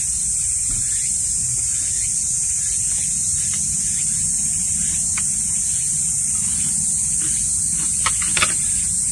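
A steady, high-pitched chorus of summer insects over a low rumble, with a few light clicks near the end from chopsticks against dishes.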